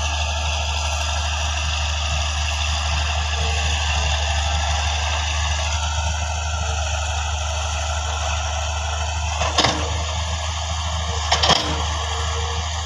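Diesel engines of a wheeled excavator and a tractor running steadily while the excavator loads soil into the tractor's trolley, with two short knocks in the last few seconds.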